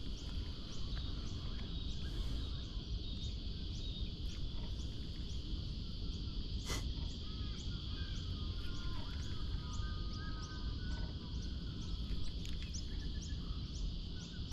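Outdoor summer ambience: a steady high-pitched insect drone with a faint regular ticking about twice a second, over a low wind rumble. Faint bird calls come in around ten seconds in, and there is one sharp click about seven seconds in.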